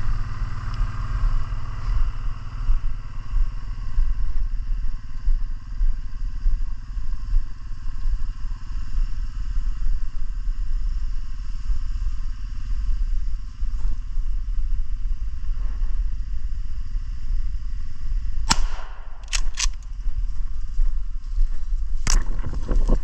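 A steady low rumble runs throughout. Near the end come several sharp snaps and crackles of twigs and brush as someone pushes through dense undergrowth.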